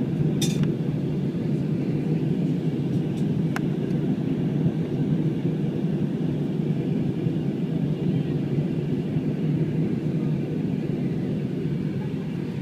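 Steady rumble of an airplane cabin in flight, the engines and airflow heard from inside. A short click comes about half a second in, and a fainter one about three and a half seconds in.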